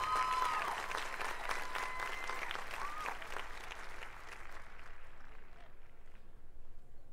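Stadium crowd applauding and cheering between pieces of a marching band show, with a few high whistles in the first few seconds; the clapping dies away over the last few seconds.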